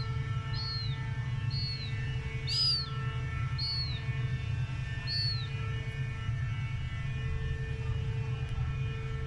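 Steady low machinery hum with a faint high whine, and short high chirps from a bird repeating about once a second, stopping about halfway through.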